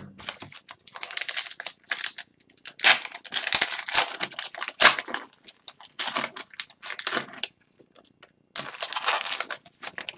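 Foil wrapper of an Upper Deck hockey card pack crinkling and tearing as it is opened, in several uneven bursts with short pauses.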